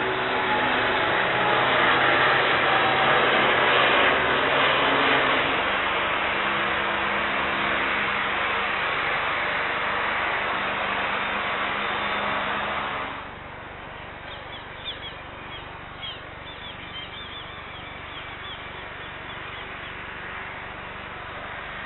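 Loud, steady engine noise with a low hum, dropping sharply about 13 seconds in to a quieter background in which birds chirp.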